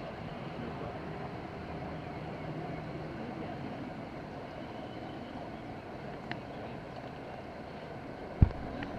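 Steady low background drone, with a faint click about six seconds in and a single sharp low thump near the end.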